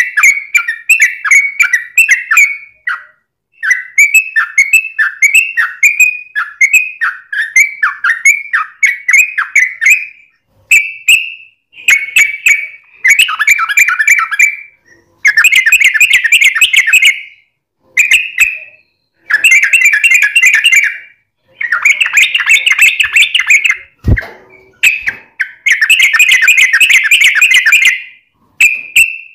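Yellow-vented bulbul (trucukan) singing in full, energetic voice: a long run of quick repeated whistled notes for about ten seconds, then a string of fast chattering phrases a second or two long with short pauses between them.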